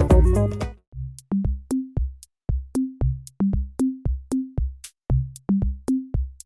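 Electronic background music: a full passage ends under a second in, then a sparse drum-machine beat of low kick-drum thumps, short bass notes and sharp ticks.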